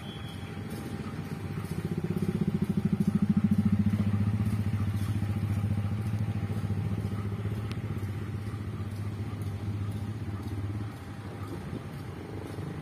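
CC201 diesel-electric locomotive's engine running with a fast low throb. It grows louder about two seconds in, then slowly eases off and drops back near the end.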